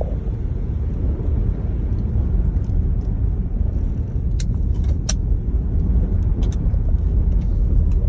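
Steady low rumble of a 2019 Jeep Grand Cherokee driving on a snow-covered road, heard from inside the cabin, with a couple of short clicks around the middle.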